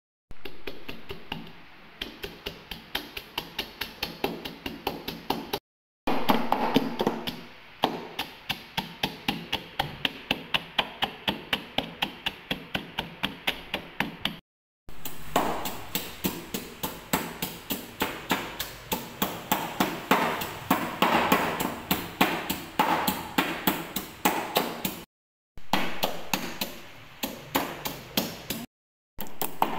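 Wooden pestle pounding garlic, salt and red chillies in a wooden mortar, crushing them into a spice paste. The strikes are steady and rapid, about four a second, and break off suddenly a few times.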